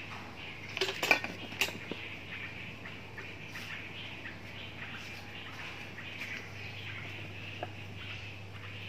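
Aluminium steamer lid and pot clattering: a few sharp metal clanks about a second in, with birds chirping in the background.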